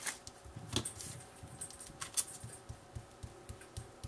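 Cardstock photo mats and paper being handled and laid on a cutting mat: scattered small taps and rustles.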